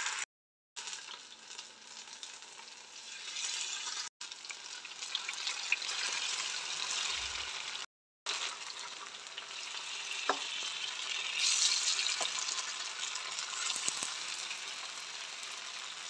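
Masala-coated chicken pieces sizzling as they fry in hot coconut oil in a pan. The sizzle drops out briefly three times and grows louder about twelve seconds in.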